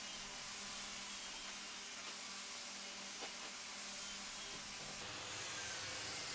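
Steady faint hiss with a low steady hum and no distinct event: background room noise; the hot glue gun's work makes no audible sound.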